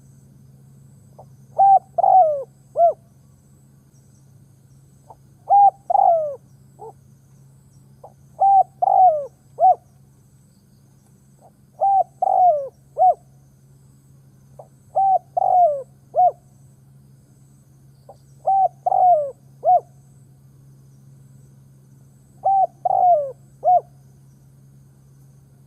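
Decoy spotted dove cooing: seven repeated phrases, about one every three and a half seconds, each of three or four short notes with a falling slide in the middle.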